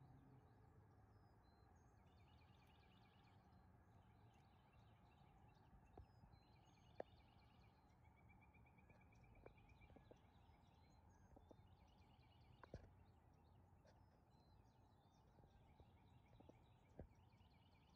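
Near silence with faint, distant birdsong of repeated chirps and trills, and a few soft clicks.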